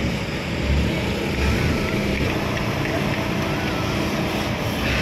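Steady rumble of city motor traffic, with one engine's low hum standing out from about a second in until near the end.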